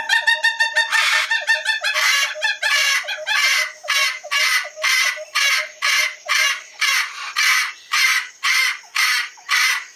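A bird calling over and over in loud, harsh cries. The first few seconds are a dense tumble of calls, which then settle into evenly spaced cries about two a second.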